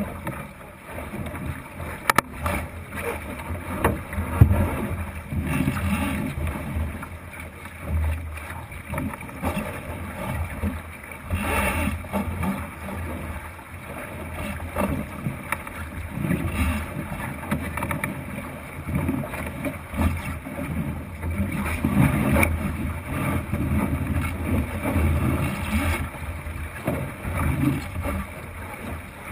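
Water rushing along and slapping against the wooden hull of a Thistle racing dinghy under sail, coming in irregular surges, with wind buffeting the microphone. There is one sharp tap about two seconds in.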